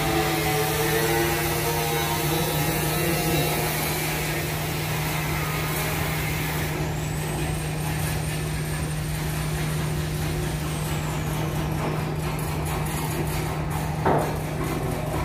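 Steady machine hum with construction-site noise while a suspended air handling unit is hoisted. A thin high whistle holds for a few seconds about halfway and then slides down, and a single sharp knock comes near the end as the unit shifts.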